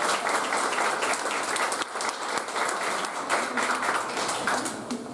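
Small crowd applauding, many hands clapping together, thinning out near the end.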